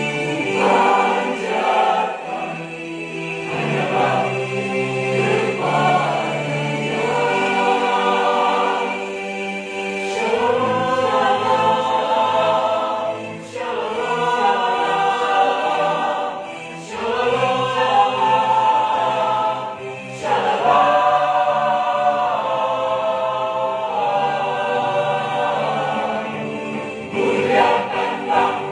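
Mixed choir of men's and women's voices singing a hymn in harmony, in sung phrases with brief breaks between them.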